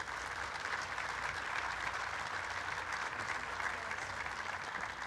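Audience applauding: a steady mass of many hands clapping, welcoming a speaker to the podium.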